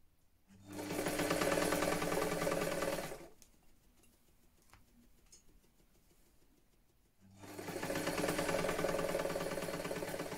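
Vintage electric sewing machine stitching in two runs of about three seconds each, its motor humming under a fast, even needle chatter, with a pause of about four seconds between runs.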